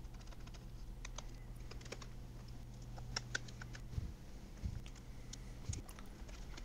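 Faint scattered clicks and light taps of plastic motorcycle bodywork being handled and pressed into place by hand, with a few soft knocks in the second half, over a low steady hum.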